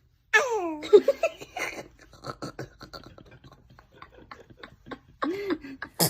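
Laughing and giggling. A high voice glides down just after the start, then rapid pulses of laughter follow for a couple of seconds, with another short voiced sound near the end.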